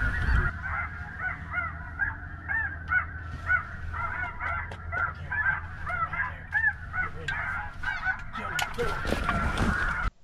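Snow geese calling: many overlapping high, yelping honks over a steady low rumble. Near the end there is a burst of rustling and knocking.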